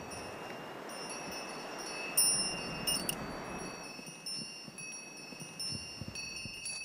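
Chimes ringing: high, clear tones struck one after another and left to ring on, over a soft rustling hiss that fades away about halfway through.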